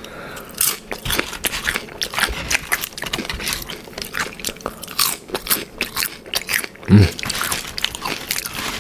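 Close-up crunching and chewing of Doritos nacho chips loaded with cheese and chicken: a dense run of sharp, crackly crunches.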